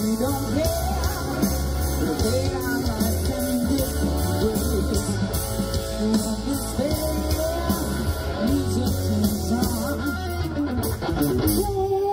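Rock music: a singer over guitar, bass and a drum kit keeping a steady beat.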